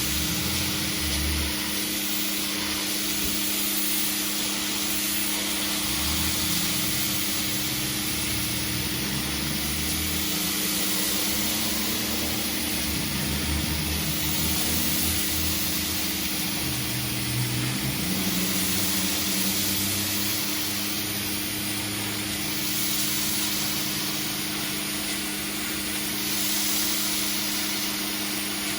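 Pressure washer running: a steady drone from its motor and pump under the continuous hiss of the high-pressure water jet striking concrete.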